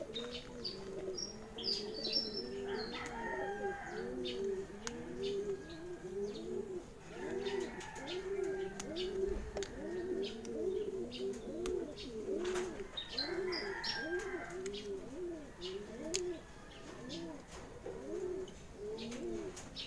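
Several domestic pigeons cooing continuously, their low rising-and-falling coos overlapping at about two a second.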